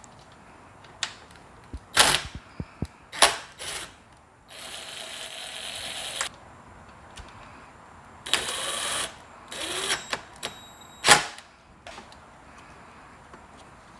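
Handling noise from connecting the starter battery inside a portable inverter generator: several sharp clicks and knocks of plastic parts and the battery connector, and two longer scraping noises of one to two seconds each.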